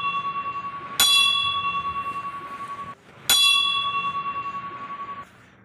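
Brass temple bell ringing: one ring still sounding at the start, then two more strikes, about a second in and a little past three seconds. Each clear, ringing tone stops suddenly after about two seconds.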